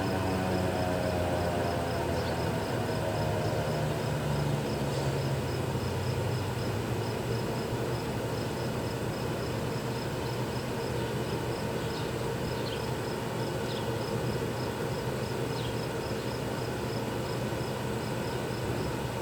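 Federal Signal 2001-130 electromechanical warning siren winding down at the end of its test, its pitch falling and fading over the first few seconds. After that comes a steady outdoor background with an insect chirping in a fast, even pulse.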